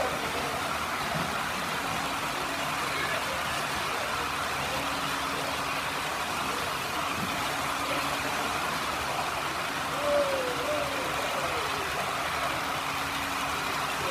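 Steady rolling rumble of a long model passenger train running past on its track, over the continuous background noise of a busy exhibition hall.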